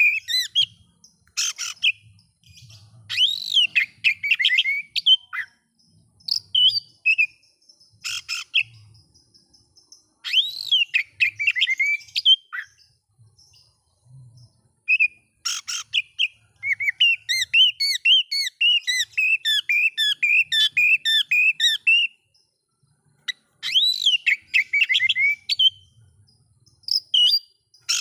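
Oriental magpie-robin (kacer) singing a varied song of whistled phrases broken by short harsh rasping notes, with a run of quick repeated chirps in the second half. This is the kind of fired-up song that sets other magpie-robins singing back.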